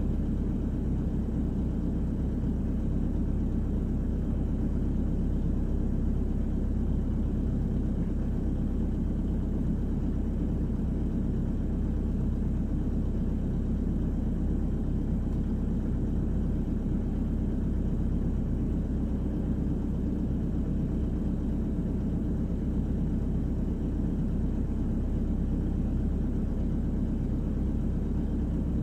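A Volvo EWR150E wheeled excavator's diesel engine runs steadily under working load, heard from inside the cab as a constant low drone while the bucket spreads sand fill.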